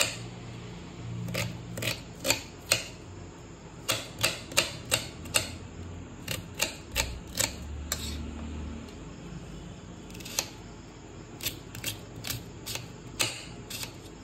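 Kitchen knife chopping an onion, the blade tapping sharply down onto the hard cutting surface in quick irregular runs of several strokes a second with brief pauses between runs.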